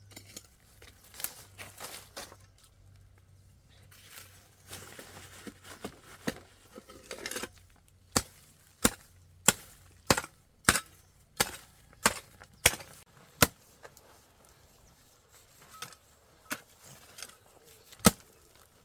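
A hand tool chopping or digging: about ten sharp strikes at an even pace of under two a second, one more loud strike near the end, with rustling and scraping between.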